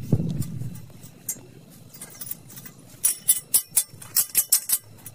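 Metal pieces clinking and tapping: a low thud at the start, then a quick run of about ten sharp, ringing metallic clinks between three and five seconds in.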